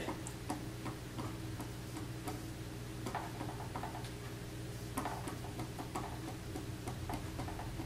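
Keypad buttons on a Sentry Safe biometric pistol safe clicking as they are pressed over and over in quick, irregular succession. These are wrong-code presses meant to simulate someone trying to break in, which drive the keypad into lockout so that it goes dead.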